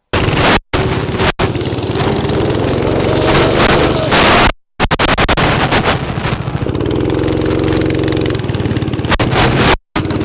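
Small go-kart engines running as karts pass close by: the engine note comes up about two seconds in and again more strongly around seven seconds. A loud rushing wind noise sits over everything, and the sound cuts out abruptly several times.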